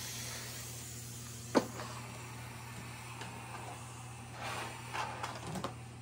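Shark S1000WM steam mop running with a faint steam hiss and a steady low hum, a sharp click about one and a half seconds in, then a few light knocks and rustling near the end as the mop head is set down on the floor.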